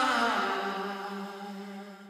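Background music ending on one long held note that fades out.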